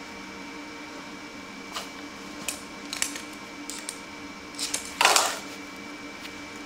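Metal clicks and knocks as red magnetic welding squares are handled and set against the steel floor jack on a steel welding table, with one loud metal clank about five seconds in as a magnet square goes on. Under it runs the steady hum of the Lincoln Power MIG 210 MP welder's always-on cooling fan.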